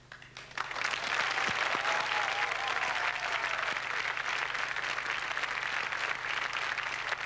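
Studio audience applauding. The applause starts about half a second in and then holds steady.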